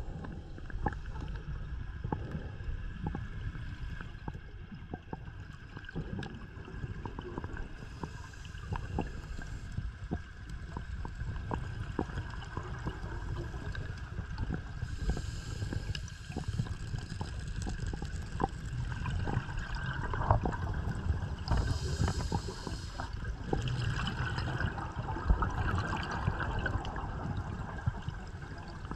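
A scuba diver's breathing heard underwater through the camera: a steady low rumble with scattered clicks, and several stretches of hissing, gurgling exhaled bubbles a few seconds apart.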